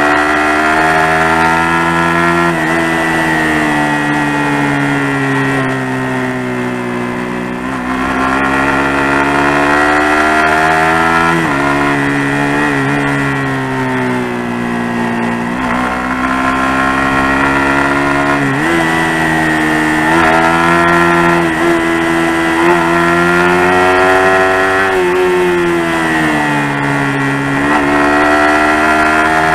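Suzuki GSX-R150's single-cylinder engine running under load through mountain bends, the revs rising and falling with the throttle. The pitch jumps sharply upward twice, about eleven and eighteen seconds in.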